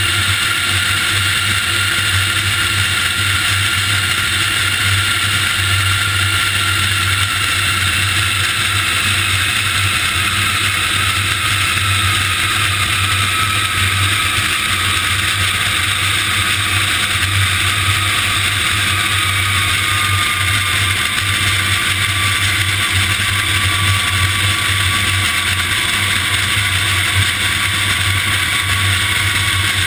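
Jet engines of a C-5 Galaxy transport aircraft running loud and steady, with a low hum under them and a turbine whine that slowly falls in pitch as they wind down.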